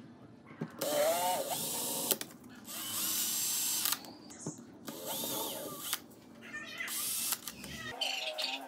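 Cordless drill with a twist bit drilling through thin strips laid on a wooden board: four short runs of about a second each, the motor whining as it spins up at the start of each.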